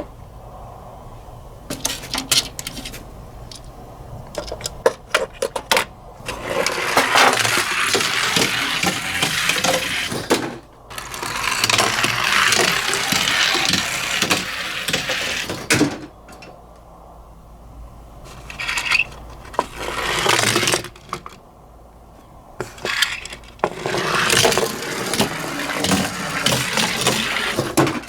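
Die-cast Tomica minicars rolling and clattering down a toy slope: scattered sharp metal clicks at first, then four long rolling rattles of a few seconds each.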